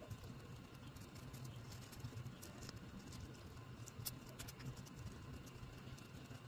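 Fingers folding and creasing a small piece of paper: faint, irregular crinkles and ticks over a steady low hum.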